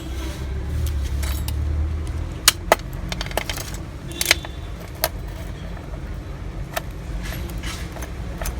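Small metal clicks and taps of watchmaker's tools handling the parts of a quartz watch: a few sharp isolated ticks, two in quick succession about two and a half seconds in, over a steady low hum.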